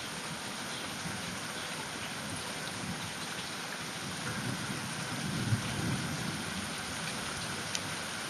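Steady rain falling during a thunderstorm, with a low rumble of thunder that swells and fades about five seconds in.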